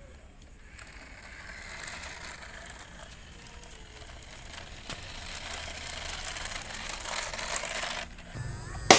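Toy remote-control car running across rough paved ground, its small electric motor and wheels making a gritty hiss that grows louder and then cuts off about eight seconds in. Music with drums starts right at the end.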